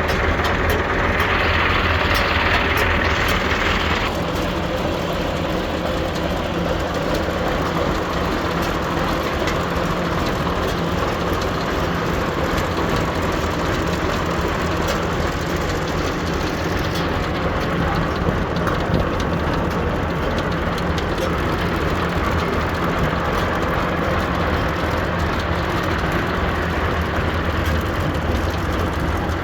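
Claas Variant 360 round baler running through on a tractor's PTO, a steady mechanical running sound over the tractor engine's low drone. A higher hissing layer stops about four seconds in.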